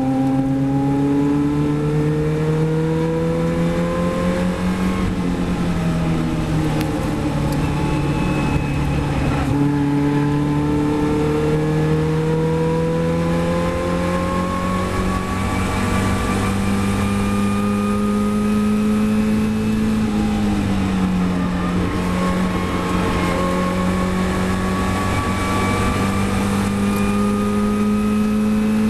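Caterham Supersports race car's four-cylinder engine heard from its open cockpit under hard acceleration, the pitch climbing steadily and dropping briefly about five seconds in and again about twenty seconds in as it shifts up, with steady wind and road rush over it.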